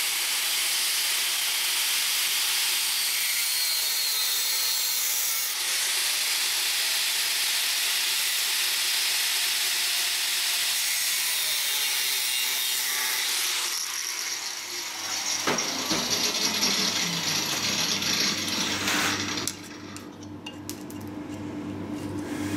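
Angle grinder cutting a small piece off a metal part: a steady loud hiss with a short break about five seconds in. About fifteen seconds in it is switched off and its whine falls away as the disc spins down, followed by quieter sounds.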